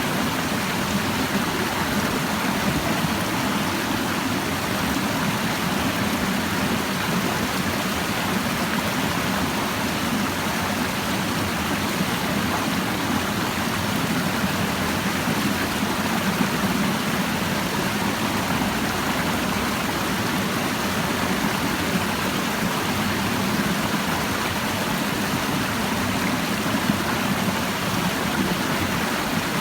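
A clear stream babbling over rocks: a steady rush of flowing water with no change or break.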